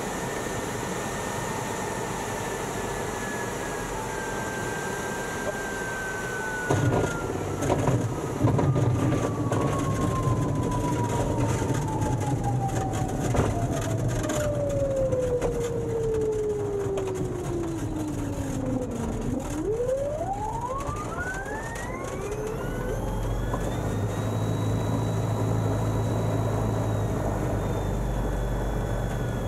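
Windmilling propeller and electric motor of a Phoenix Air electric motorglider giving a whine that falls slowly in pitch as the aircraft slows, with knocks and a low rumble of the landing gear touching down and rolling about 7 seconds in. The whine dips to its lowest about 19 seconds in, then sweeps sharply up and holds high over a heavier rumble.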